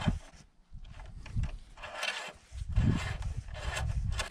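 Shop towel rustling as the oil dipstick is wiped, with a few handling knocks, the first one sharp right at the start, and an uneven low rumble of wind on the microphone.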